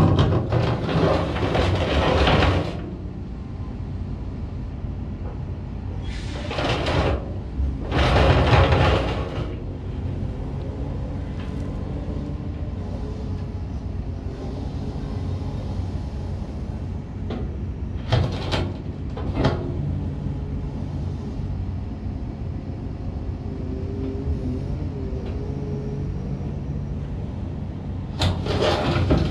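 Caterpillar 930M wheel loader's C7.1 diesel engine running while its hydraulics raise and lower the bucket. The engine and hydraulic noise surges loudly several times, near the start, twice more soon after, briefly twice past the middle, and again near the end.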